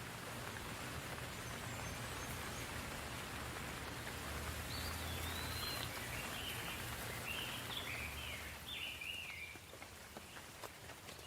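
Soft, steady rain falling, with a bird singing a run of short, quick chirping phrases from about four seconds in until about nine seconds. Near the end the rain thins and single drops tick.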